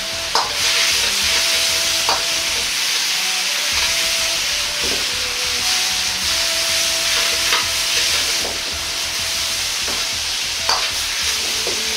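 Carrot strips sizzling in a hot wok while a metal wok ladle stirs them, the ladle clinking sharply against the pan about four times. The seasoning liquid is cooking down as the carrots are tossed through it.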